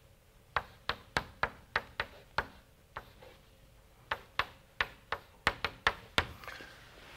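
Chalk knocking and tapping on a blackboard as an equation is written: sharp, irregular taps about three a second, with a pause of about a second and a half in the middle.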